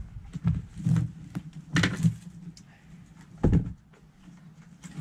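Plastic bucket being handled and set down on the stone patio: a few knocks and scrapes, with one heavy low thump about three and a half seconds in.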